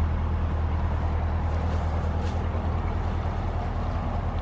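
Canal narrowboat's diesel engine chugging steadily as the boat moves off along the canal, a low, even, rapidly pulsing engine note.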